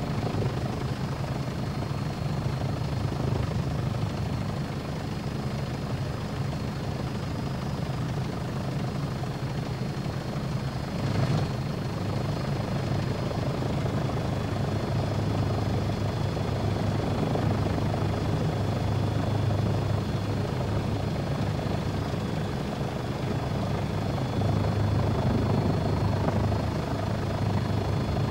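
Helicopter turbine engine and rotor noise heard from on board: a steady low drone with a thin high whine over it, and a short louder moment about eleven seconds in.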